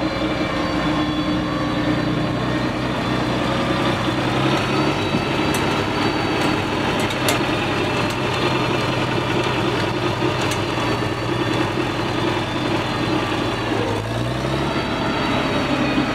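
International Harvester 706 tractor engine running steadily while the tractor works a mounted moldboard plow through sod. The engine note rises slightly about fourteen seconds in.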